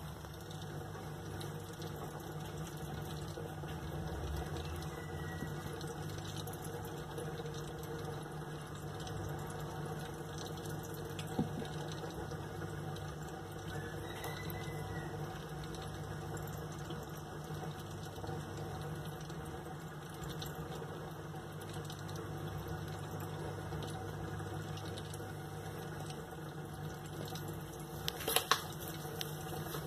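Aquarium filter running: steady water flow over a low, even hum. A sharp knock about a third of the way in, and a few clicks near the end.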